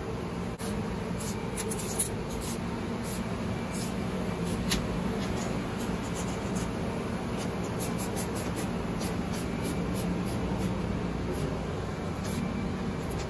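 Cloth lint filter bags in a laundry dryer's filter cabinet rubbing and rustling as they are handled, with scattered light clicks. A steady low machinery hum runs underneath.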